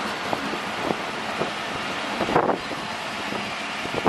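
Pakistan Railways passenger coaches rolling past on the track: a steady rumble with occasional wheel clicks over the rail joints, and wind on the microphone.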